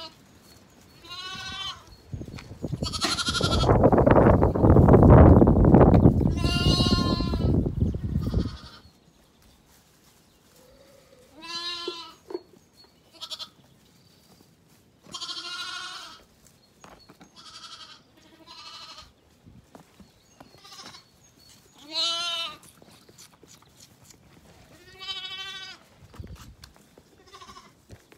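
Zwartbles lambs bleating again and again, short high calls a few seconds apart. About three seconds in, a loud rushing noise runs for about five seconds under the bleats.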